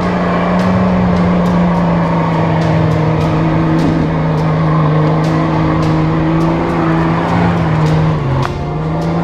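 Off-road 4x4's engine running hard at high, steady revs as it pushes through mud; the revs dip briefly near the end and then pick up again.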